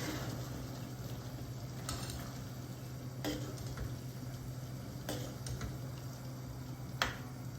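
Spoon scraping and knocking against a pan as thick, porridge-like sweet pongal is stirred while it cooks down. A few separate scrapes sound over a steady low hum, the sharpest near the end.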